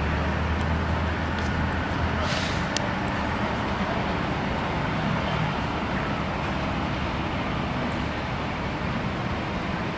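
Steady low drone of idling vehicle engines over general street noise. A brief hiss and a sharp click come a little over two seconds in.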